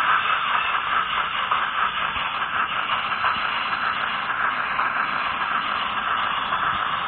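Steady whirring rattle of an HO-scale model train running along its track, heard from on board.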